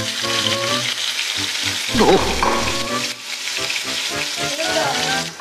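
Slices of Spam sizzling in hot oil in a frying pan, a steady hiss, with a brief exclaimed "oh" about two seconds in.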